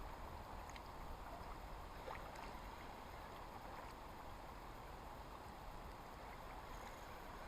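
Faint, steady outdoor noise of wind and river water, with a few faint ticks.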